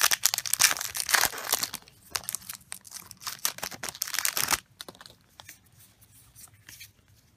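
Foil booster-pack wrapper of a Pokémon card pack being crinkled and torn open by hand, a loud dense crackle for about four and a half seconds. Then only a few faint rustles as the cards are handled.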